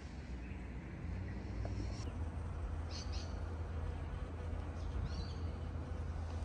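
Steady low outdoor rumble, with a few short, high bird chirps over it: a quick pair about three seconds in and a falling call about five seconds in.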